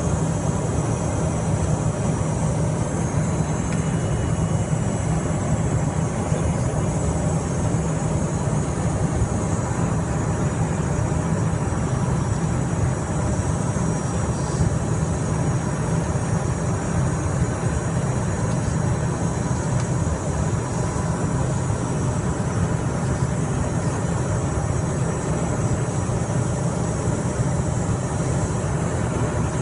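Steady cabin noise inside a Cessna Citation Mustang jet on final approach: a low rumble of airflow and its twin Pratt & Whitney PW615F turbofans, with a thin, steady high whine over it.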